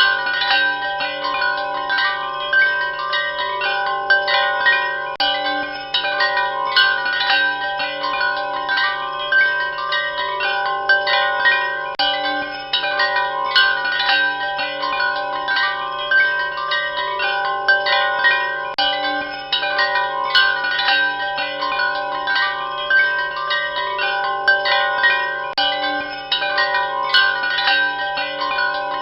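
Metal wind chimes ringing continuously, with many overlapping struck tones that sustain and blend into one another. A steady low tone sits underneath.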